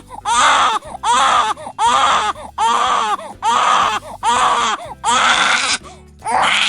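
A baby crying hard: a steady run of loud wails, a little more than one a second, each rising and falling in pitch.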